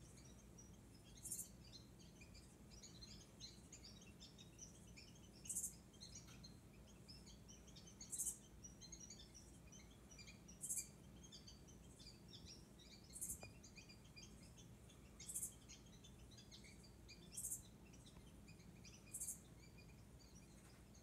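Faint birdsong played from a TV: many soft twittering chirps, with a short, very high call repeated about every two to three seconds.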